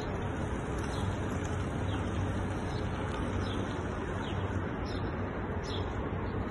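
Urban outdoor background: a steady hum and hiss, with small birds chirping briefly every second or so.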